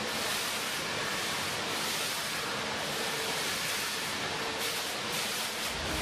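Steady hiss and patter of a waterfall sign's droplets falling from the ceiling and splashing below. Music comes in near the end.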